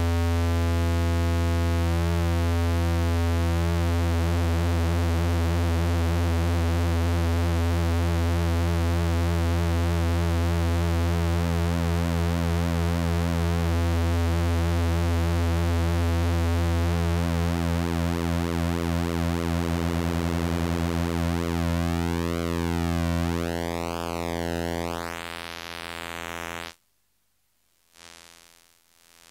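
MFOS Sound Lab Mini-Synth (Eurorack version) droning a low, buzzy pulse-wave tone from its second oscillator, its timbre sweeping steadily as the LFO modulates the pulse width and the knobs are turned. Near the end the tone thins and grows quieter, cuts out for about a second, and comes back.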